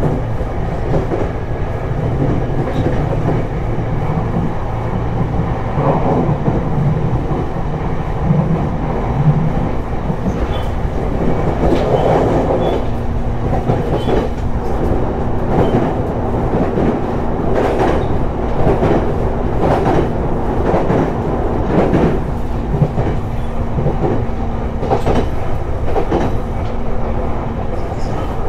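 Abukuma Express AB900 series electric train running, heard from inside the car: a steady rumble of wheels on rail with irregular rail-joint clacks. A steady low hum joins about a third of the way in.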